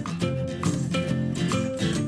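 Background music led by a plucked guitar, with notes struck in a steady rhythm.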